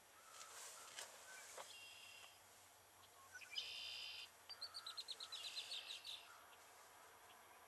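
Birds calling in near quiet: a buzzy call about three and a half seconds in, then a fast run of about a dozen clipped high notes.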